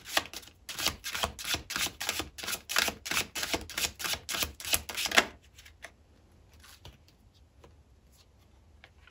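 Typing on a keyboard: a quick run of key clicks, several a second, for about five seconds, then only a few scattered clicks.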